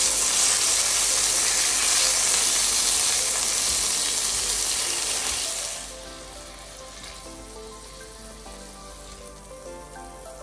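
Pork tenderloin searing in hot oil with rosemary in a frying pan: a loud, steady sizzle that drops sharply about six seconds in to a much quieter sizzle of the oil.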